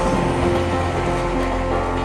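Background music with held notes that change every second or so.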